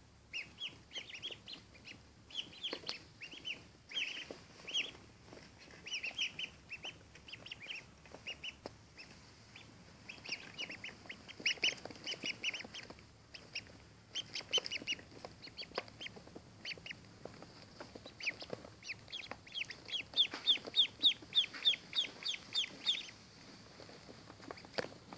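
Day-old ducklings peeping: many short, high chirps overlapping from the whole brood. The calls grow busier near the middle and come in a fast run of loud peeps toward the end.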